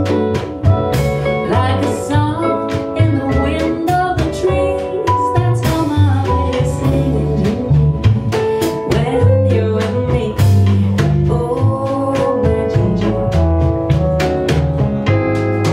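Swing jazz played by a small combo of guitar, piano, bass and drums, with a walking bass and a steady beat on the drum kit.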